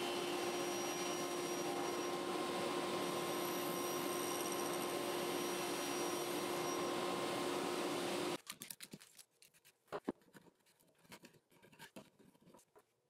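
Sliding table saw running steadily with a constant hum as a cedar post is fed over the tilted blade to cut a dovetail slot. About eight seconds in it cuts off, and a few faint taps and scrapes of a chisel paring the wood follow.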